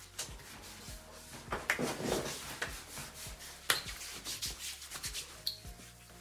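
Hands rubbing body lotion into the skin of the face: soft rubbing strokes, loudest a couple of seconds in, with one sharp click near the middle.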